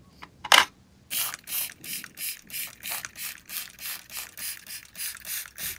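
A small brass part clinks as it is dropped into a jar about half a second in. Then a soot-removal spray is pumped rapidly over blackened blowtorch parts, about three short hissing squirts a second.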